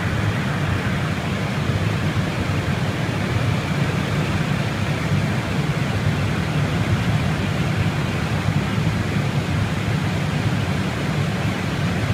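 Steady flight-deck noise of an Airbus A320 airliner: a constant rush of airflow and air-conditioning hiss over a low hum, unchanging throughout.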